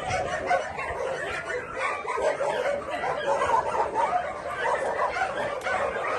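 Many dogs barking together: a continuous, overlapping chorus of barks with no break.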